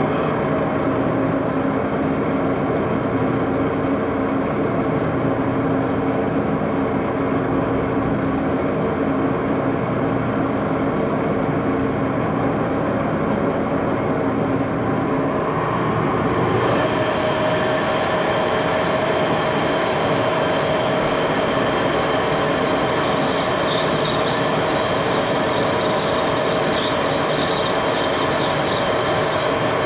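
A machine-shop machine running steadily, its steady hum changing pitch about halfway through, with a higher hissing sound joining near the end.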